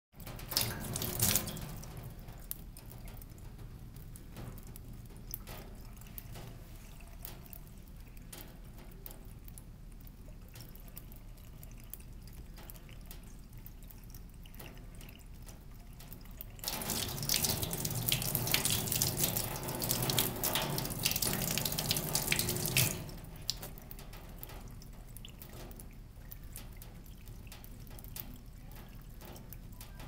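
Faucet running a thin stream of water into a sink, splashing and dripping. The splashing is louder briefly about a second in, and again for about six seconds past the middle.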